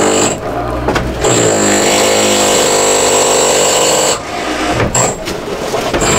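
Very loud power tool from renovation work in the kitchen upstairs, running with a high whine, stopping briefly about half a second in and again for a couple of seconds after about four seconds.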